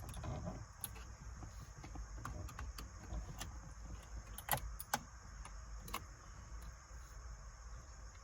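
Faint, scattered clicks and light scrapes of a tool against plastic as the head unit's display is pried at to pop its spring clip, the sharpest click about four and a half seconds in, over a low steady hum.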